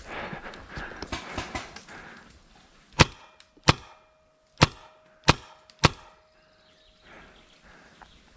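Rustling of leaves and brush underfoot, then five sharp shots from a Tiberius T15 magfed paintball marker, fired a little under a second apart.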